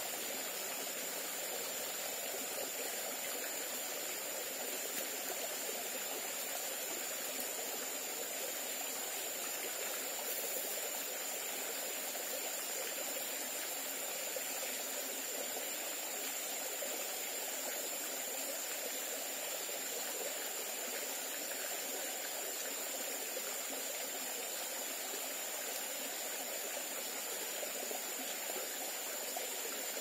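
Small rocky forest stream trickling over stones into a pool: a steady, even rush of water. A thin, steady high whine sits above it.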